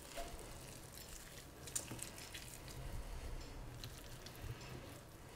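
Faint wet squishing and small clicks of hands pulling apart and pressing tender cooked pork shank meat in a glass dish, over a low steady hum.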